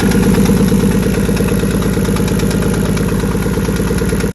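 Car engine running steadily with a loud, even exhaust pulse.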